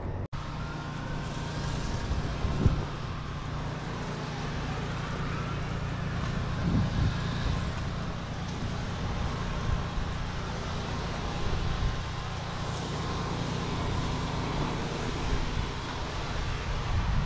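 Steady hiss of a spray wand jetting a stream onto a clay barrel-tile roof, over a low steady rumble.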